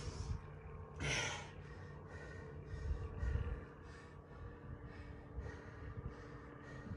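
A man breathing hard as he recovers between rounds of dumbbell clean and presses and push-ups, with a sharp gasping exhale about a second in. A low rumble around three seconds in.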